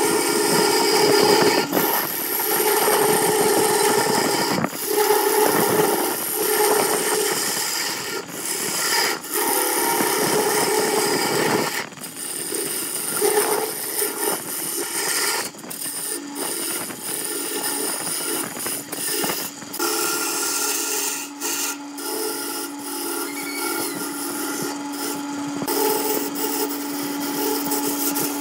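Wood lathe running while a hand-held turning tool cuts into a spinning vase blank glued up from wooden panels: a continuous rasping scrape broken by short gaps as the tool lifts off. A steady motor hum comes through more plainly in the second half.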